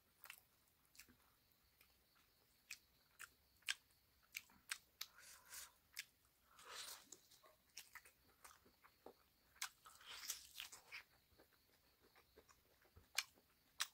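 Close-up eating sounds: pork and rice being bitten and chewed, with irregular sharp wet clicks and smacks and a couple of longer, noisier chewing stretches about seven and ten seconds in.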